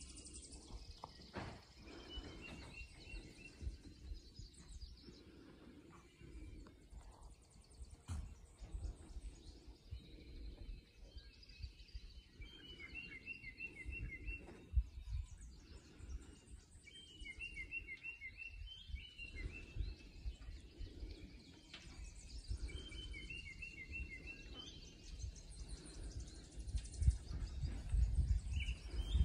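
Outdoor rural ambience: a songbird repeats a short trilled phrase of about a second every few seconds, over fainter high chirps. A low uneven rumble runs underneath and grows louder near the end.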